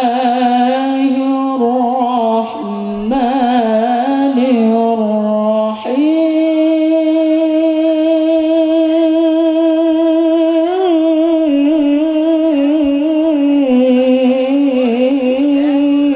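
A man reciting the Quran in Arabic in the melodic tilawah style through a handheld microphone, after the opening bismillah. He draws the notes out long with ornamented turns, holding one note for several seconds in the middle.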